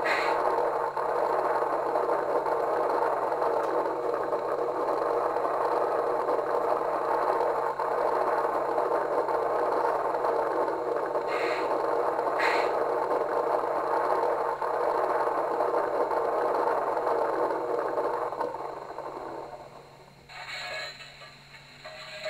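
Phoenix P5 sound system in an LGB Wild West Forney model locomotive playing a steady steam hiss through its small onboard speaker. The hiss fades out about 19 seconds in, and two short clicks come partway through.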